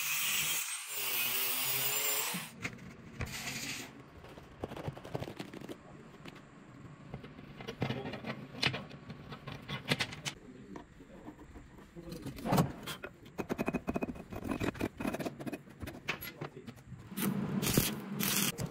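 An angle grinder's cut-off disc cuts through steel wire rope for about the first two and a half seconds. After that come scattered metallic clicks and knocks, with a louder rushing noise near the end.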